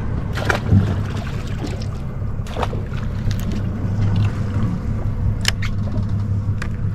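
Yamaha outboard motor idling steadily, a low even hum, with a few short sharp clicks scattered through it.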